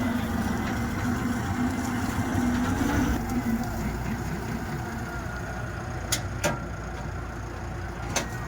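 Swaraj 8200 combine harvester's engine running steadily with a constant machine drone, a humming tone over the first few seconds, and three short sharp clicks in the second half.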